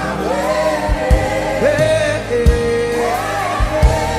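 Gospel worship music: voices hold long, wavering sung notes over a band with low drum hits.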